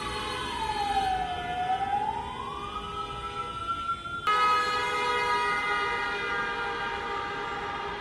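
Many car horns sounding together in a sustained, held chorus, honked in protest against the junta. One tone slides down and back up in the first few seconds, and about four seconds in the sound cuts abruptly to another held chorus of horns.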